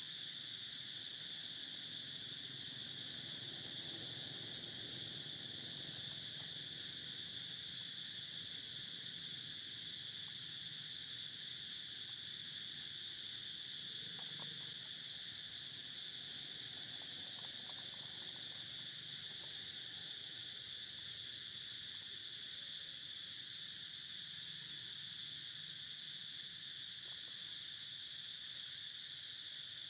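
Steady high-pitched drone of an insect chorus, unbroken and unchanging in level.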